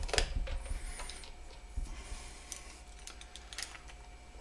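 Scattered light clicks and taps of a cordless impact driver's long socket extension being fitted onto an air-box bolt of a Predator 212 engine.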